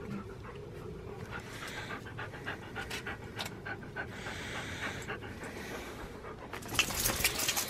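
Siberian husky panting close by, louder about seven seconds in.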